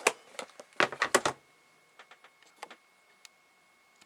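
A quick run of clicks and knocks of small hard objects being handled, loudest in the first second and a half, followed by a few faint ticks.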